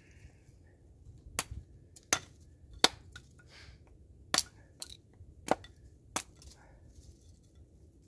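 Hatchet chopping into a short piece of wood on a block: about seven sharp, unevenly spaced knocks.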